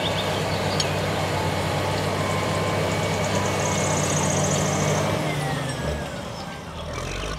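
Crawler bulldozer's diesel engine working steadily under load as the dozer pushes dirt with its blade, with the noise of its running gear over it. The engine eases off about five seconds in.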